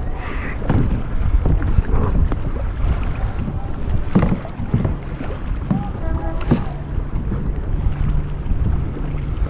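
Double-bladed kayak paddles dipping into seawater, with several splashy strokes at an uneven pace. Wind buffets the microphone throughout.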